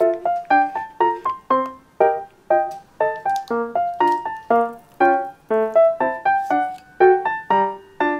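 Background music: a light piano melody of short, quickly fading notes, about three to four a second.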